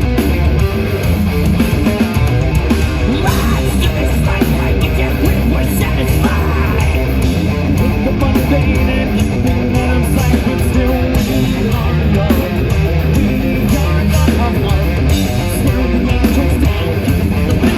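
Live progressive metal band playing loud through the PA: heavily distorted electric guitars over bass and drums, captured on a phone or camera microphone in the crowd.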